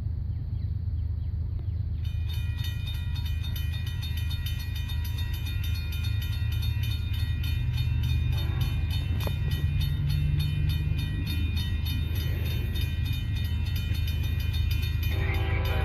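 Passing CSX freight train: a steady deep locomotive rumble, joined about two seconds in by a fast, even clatter of wheels over the track, with high metallic ringing. A pitched chord of several notes comes in near the end.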